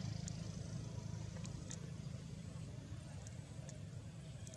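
Low rumble of a motor vehicle's engine fading away, with a few faint high ticks.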